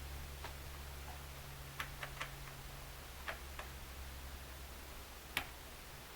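Scattered light clicks and ticks, about seven at irregular intervals with the sharpest near the end, from parts being handled during a TV repair, over a low steady hum.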